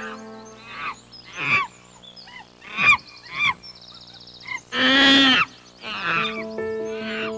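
Animal calls over soft background music with sustained notes: several short calls falling in pitch, then one longer, louder call about five seconds in.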